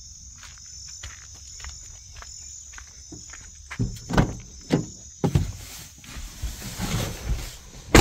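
Crickets chirping steadily in a high band throughout. From about four seconds in come irregular knocks, thuds and rustling of someone moving about and getting into a car, ending in a loud thump.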